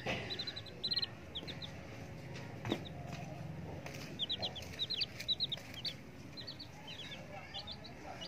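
Baby chicks peeping: short, high cheeps in quick runs of several at a time, with a brief lull a little before the middle.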